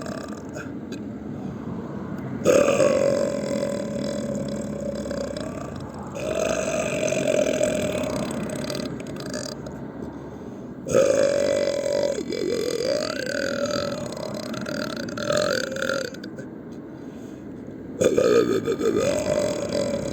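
A man's long, loud burps, one after another: four of them, each starting sharply and held for a few seconds at a steady pitch, the third wavering up and down.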